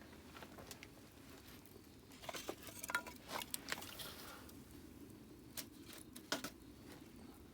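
Wood campfire crackling, with scattered sharp pops and a brief flurry of them about two to four seconds in.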